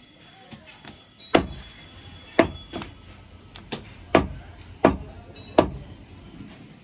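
Heavy chopping knocks on a wooden butcher's block as mutton is cut: five loud strikes at irregular intervals of about a second, with a lighter knock and a few faint ticks between them.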